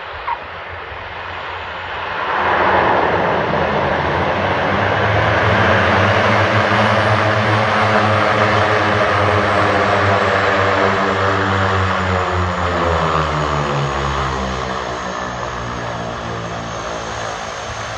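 Twin-engine turboprop airplane landing: its propeller and engine drone swells loud about two seconds in, over a high turbine whine, and the propeller tones slide down in pitch over the last few seconds as it slows on the runway.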